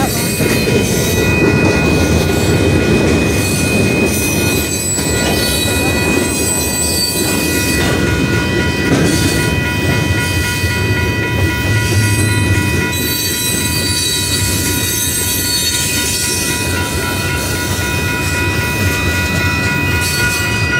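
Union Pacific freight train cars rolling past close by: a loud, steady rumble of wheels on rails, with steady high-pitched tones above it.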